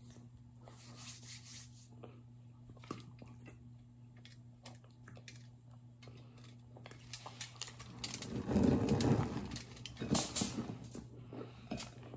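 Close-up crunching and chewing of a dry cornstarch brick, with fine crackles and fingers crumbling the packed powder. A little past the middle a chunk of the brick is broken off, the loudest sound, followed by a few sharp crackles.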